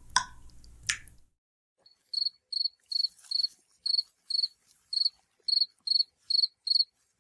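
Cricket chirping, the stock 'crickets' sound effect used for an awkward silence: about eleven short, high chirps, roughly two a second, starting about two seconds in. A few clicks and a short tone sound in the first second before it.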